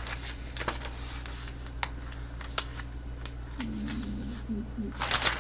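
Paper rustling and small clicks as sheets of notes are handled and looked through, with a bigger rustle near the end. A low steady hum runs underneath, and a brief murmured voice comes in about two-thirds of the way through.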